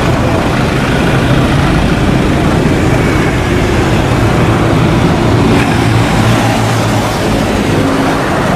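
Cessna 172 single-engine piston engine and propeller droning steadily.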